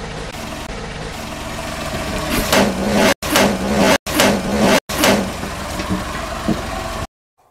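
Car engine running as the front tyre rolls slowly over a row of filled rubber balloons, which burst with several loud pops between about two and a half and five seconds in. The sound cuts off suddenly near the end.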